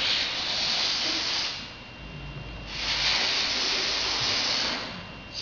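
A man blowing up a rubber balloon by mouth: two long, breathy blows, the first lasting about a second and a half, the second starting about three seconds in and lasting about two seconds.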